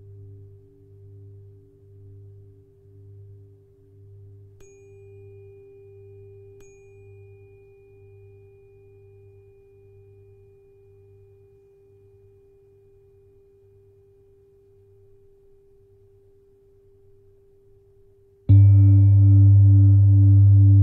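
A steady 396 Hz tuning-fork tone sounds over the fading, slowly wobbling hum of an old singing bowl. Two light taps, about four and a half and six and a half seconds in, add a faint high ring. Near the end a singing bowl is struck and rings out loud and deep, with a slow pulsing wobble.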